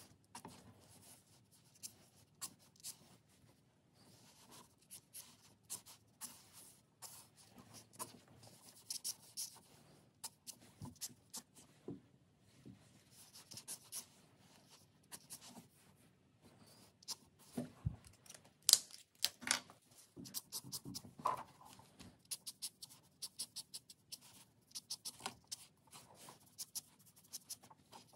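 Marker tip scratching across paper in quick, irregular strokes while colouring and hatching, with a few sharper ticks about two-thirds of the way in.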